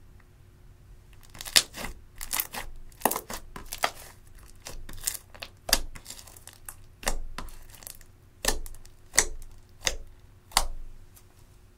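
Thick clear slime mixed with pink and grey eyeshadow being squeezed, folded and poked with the fingers, giving a string of sharp sticky snaps and crackles, about one or two a second, starting after a quiet first second.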